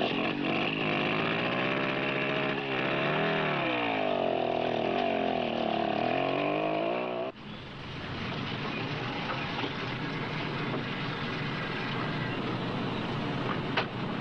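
Motorcycle engine revving as it pulls away, its pitch climbing, dipping and climbing again before holding high. It cuts off abruptly about seven seconds in, leaving a quieter steady rumble and a single click near the end.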